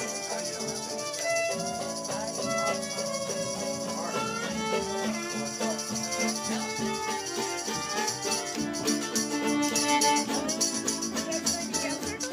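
Music with sustained pitched instrument notes, joined by a shaker rattling in a quick, even rhythm over the second half.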